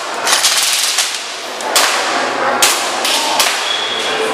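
Airsoft guns firing sharp single shots, about four of them roughly a second apart, over a steady background noise.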